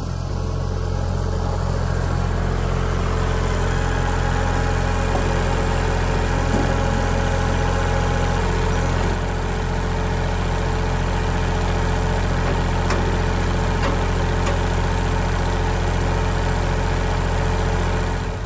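Kubota compact tractor's diesel engine idling steadily, with a slight drop in level about halfway through.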